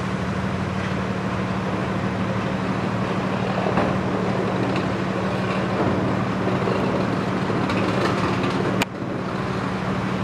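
1995 Chevrolet Cheyenne 3500 HD dump truck driving away along a street: steady engine and road noise with a low drone held under it. A single sharp click about nine seconds in.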